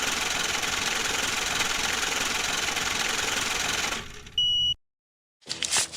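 Steady static-like hiss for about four seconds, cutting off into a short high beep and then a moment of silence.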